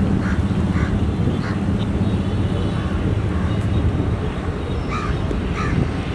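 WDP4 diesel locomotive's EMD 16-cylinder two-stroke engine rumbling steadily as it hauls a passenger train at a distance. Birds call in short, repeated calls over it.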